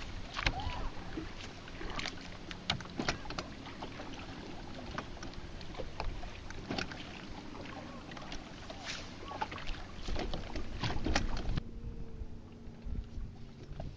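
Small waves slapping against a fishing boat's hull, with wind on the microphone and scattered sharp clicks and splashes from handling the fish and tackle.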